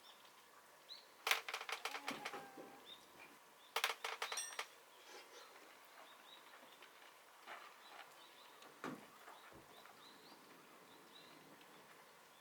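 Quiet outdoor ambience with faint, short bird chirps throughout. Two brief bursts of rapid clicking and rattling stand out, one about a second in and one about four seconds in.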